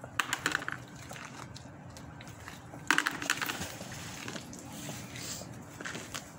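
Magnet-fishing rope and gear being handled at an iron railing: short knocks and scrapes just after the start, and a sharp clatter about three seconds in, the loudest sound.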